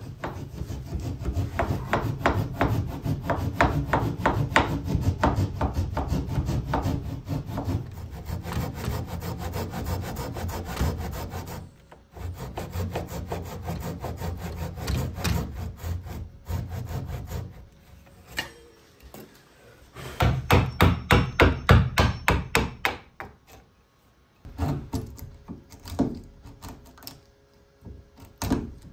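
Hand tools cutting wood: a plane, a flush-cut saw and a chisel, in long runs of fast, even strokes with short pauses. The strokes are loudest about twenty seconds in, then come more sparsely.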